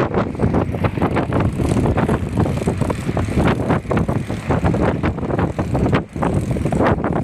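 Wind buffeting the microphone in strong, irregular gusts, a loud rumbling noise.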